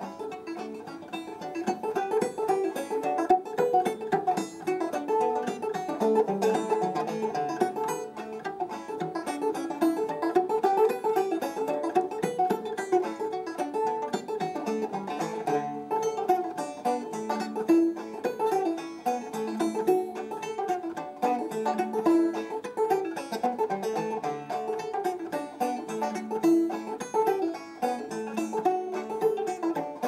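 A five-string banjo played solo: a steady stream of quick plucked notes in a lively ragtime tune.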